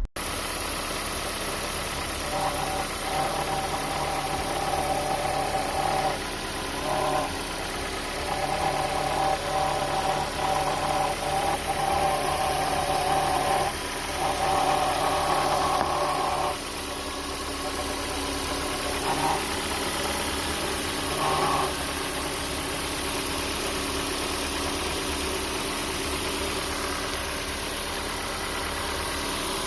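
Car engine idling just after a morning start, with an extra whining tone that comes and goes in stretches of a few seconds, then returns twice briefly and stops. The owner thinks the noise comes from the belt area but is not sure.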